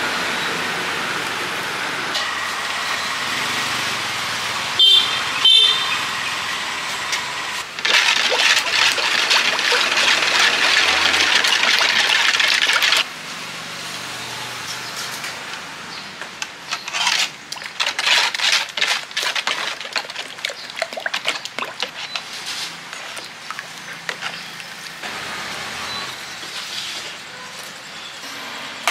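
Steady street-traffic noise with two short high beeps about five seconds in; then a loud, steady cooking hiss for about five seconds; then a quieter stretch of irregular clicks and crackles, with a wood fire crackling in a clay stove near the end.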